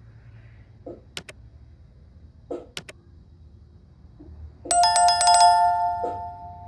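Subscribe-button animation sound effects: a few sharp mouse clicks, then, about two-thirds in, a notification bell chime that rings for about two seconds and fades.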